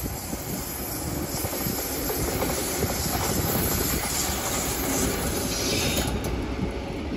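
Blue diesel shunting locomotive running light past the platform: a steady rumble of its engine together with its wheels on the rails.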